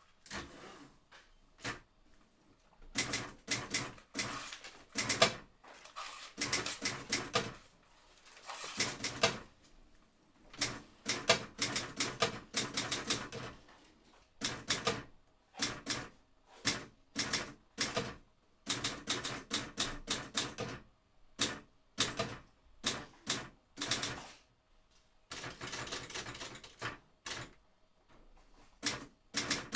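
Typing: bursts of quick, sharp keystrokes, broken by short pauses.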